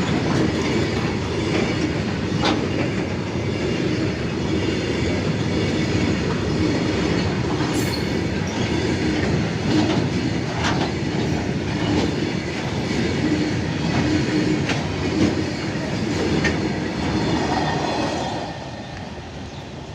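Goods train wagons rolling past over the rails, a steady clatter of wheels with a sharp knock now and then. The sound falls away about eighteen seconds in.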